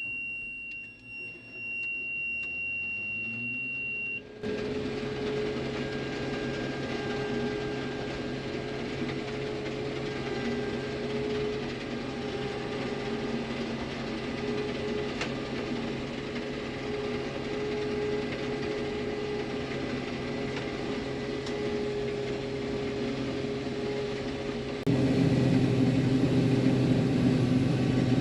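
Harvest machinery, most likely a combine, running steadily with a constant droning hum. The opening few seconds are quieter, with a thin steady high tone and a rising whine, before the full drone cuts in; it gets louder near the end.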